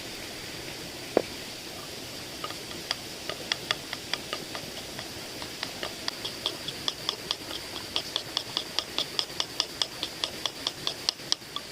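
Knife chopping on a cutting board: a run of sharp, even taps that starts sparse and quickens to about four a second, over a steady background hiss.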